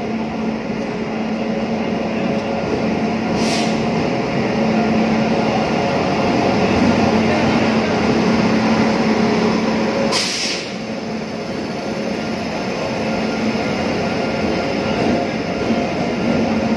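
Two Indian Railways electric locomotives, one a WAP-7, rolling slowly past along the platform: a steady electric hum over the rumble of the running gear, growing louder as they come alongside. Two short hisses sound, about three and a half and ten seconds in.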